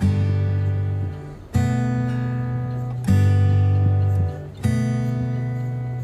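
Background music: acoustic guitar strumming, with a new chord struck about every one and a half seconds and left to ring.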